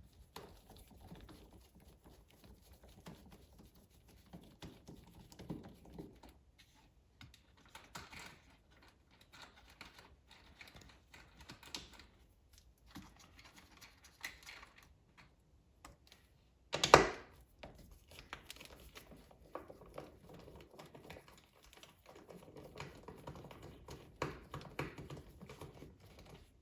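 Hand ratchet with a 10mm socket clicking in short runs as the console bolts are loosened, among small clicks and rattles of tools and parts being handled. About seventeen seconds in there is one sharp knock, the loudest sound.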